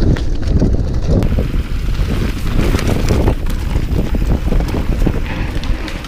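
Wind buffeting the microphone over the rumble of mountain bike tyres running fast down a loose dirt trail, with scattered clicks and rattles from the bike and stones.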